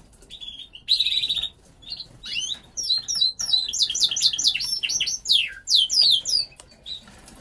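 Border canary cock singing: short buzzy trills, then a quick run of high notes sweeping downward, lasting several seconds before it stops near the end. The singer is the cock that its breeder reckons the fittest bird in the room, ready for breeding.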